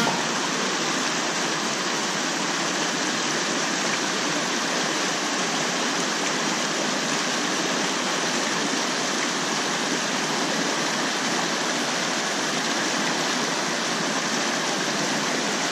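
Fast mountain creek rushing over rocks: a steady, even rush of whitewater.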